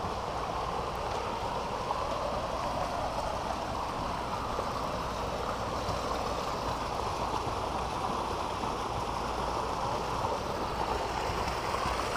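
Water gushing from an inlet pipe into a round concrete hatchery rearing tank: a steady, unbroken rushing splash.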